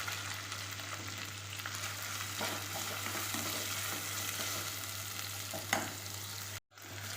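Sliced onions frying in a pan of hot oil, a steady sizzle, with a spoon stirring and now and then scraping the pan. The sound breaks off for a moment near the end.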